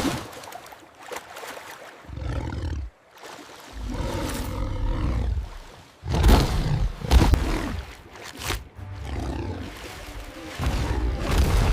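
Deep, loud monster roars and growls, one after another, each lasting one to two seconds, with the loudest about six seconds in.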